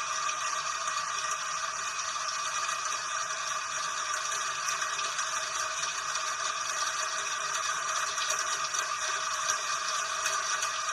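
Steady rain falling, a dense, even patter that holds unchanged throughout.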